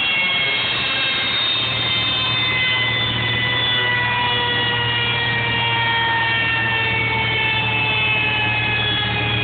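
Corsa with a freshly rebuilt engine running on a rolling road: a loud, steady mechanical whine from the engine, drivetrain and dyno rollers, its several tones falling slowly in pitch as the car winds down on the rollers.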